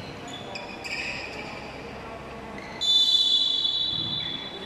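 A referee's whistle blows one long, shrill blast about three seconds in, fading away over nearly two seconds. Before it come a few short squeaks of basketball shoes on the court.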